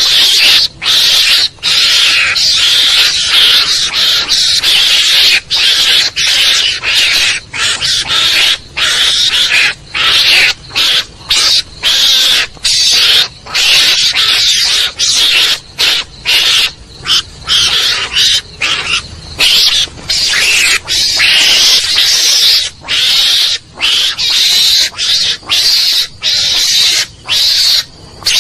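Recorded mongoose (garangan) lure call: harsh, high-pitched calls repeated over and over with only short breaks between them, a call played to draw mongooses in.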